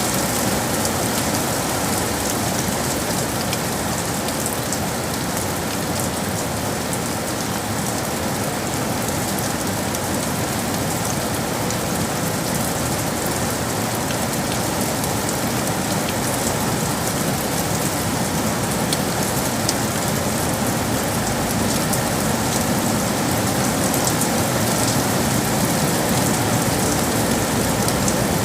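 Steady rain falling on city surfaces, a dense even hiss with many fine drop ticks.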